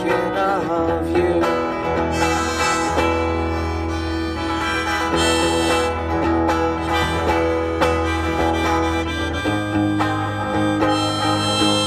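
Blues harmonica played into a vocal microphone over electric guitar chords, with no singing. The guitar moves to a new chord about nine and a half seconds in.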